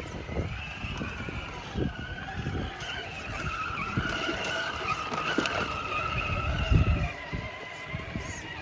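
Electric motor and gearbox of a radio-controlled scale rock crawler whining, the pitch rising and falling with the throttle as it crawls. Irregular knocks and scrapes of the tyres and chassis on the obstacles come underneath, the loudest a little before the end.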